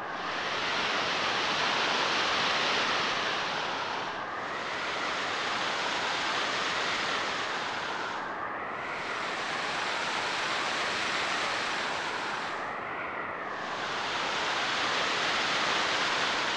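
Ocean surf sound effect: waves washing in and drawing back in four slow swells, about one every four seconds, as a steady rush of hiss.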